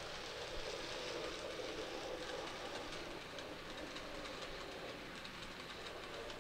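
N gauge Graham Farish LMS Fairburn tank engine running on model track, pulling a rake of eight Mark 1 coaches up a slight incline without slowing: a steady faint motor whir and wheel rumble with light clicking from the track.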